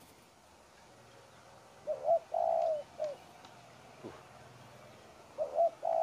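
A dove cooing. One phrase of two short notes, a longer rolled coo and a short final note, repeated about three and a half seconds later.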